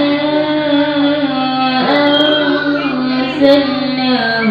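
A boy reciting the Qur'an in melodic tilawah style into a microphone. He holds long sustained notes, joined by gliding, ornamented turns.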